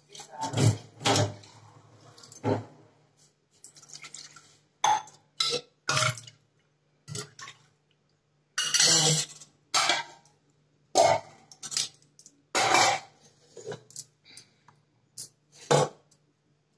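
Kitchen utensils and pots clattering and clinking as they are handled, in a run of separate knocks with a few longer scrapes, over a faint steady low hum.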